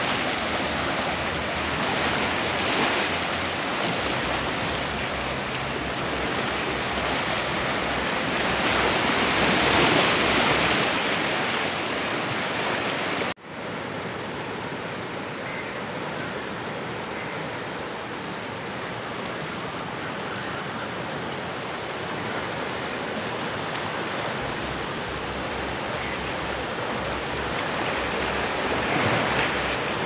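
Swollen Chenab river in flood, its fast, turbulent water rushing past the bank in a steady, loud wash of noise. The sound breaks off for an instant about halfway through and carries on slightly quieter.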